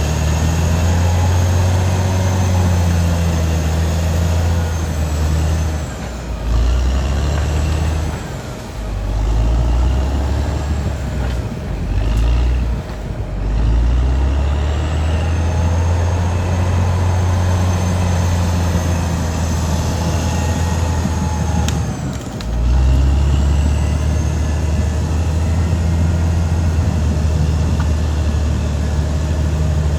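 Caterpillar D6R XL bulldozer's diesel engine working, a heavy low drone with faint high whines above it, easing off briefly a few times (around 6, 9, 12 and 22 seconds) before pulling again.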